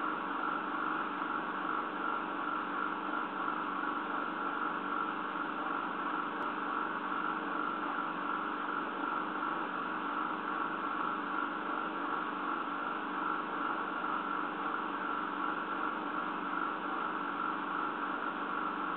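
A steady hum with hiss, unchanging throughout, with no distinct events.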